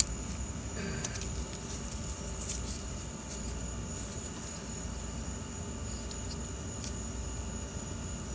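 Faint clicks and scrapes of hands working a plastic one-wire connector off an engine's oil pressure sensor, over a steady low hum and a thin steady high-pitched whine.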